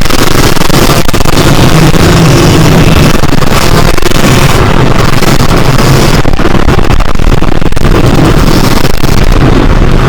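Yamaha YZ125 two-stroke single-cylinder dirt bike engine running hard off-road, loud and continuous.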